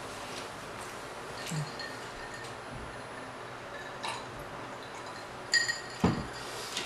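Quiet eating at a table with a few faint clicks of tableware, then about five and a half seconds in a ringing clink of tableware, followed a moment later by a sharper knock.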